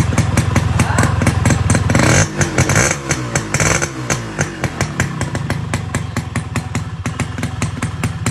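Honda H100S motorcycle's two-stroke engine running; about two seconds in it is revved up, then its speed falls away over a second or two and it settles into a steady idle.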